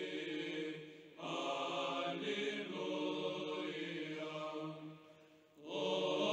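Background chant music: voices singing long held notes, with a short break about five and a half seconds in.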